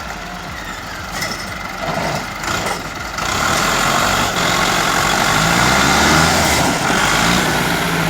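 A heavy vehicle engine running loud and hard over rough rumbling noise, its pitch rising and falling between about five and eight seconds in.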